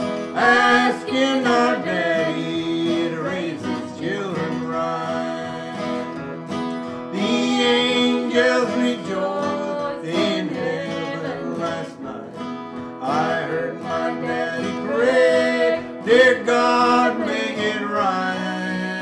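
Two acoustic guitars playing a country gospel song, with singing over them at times.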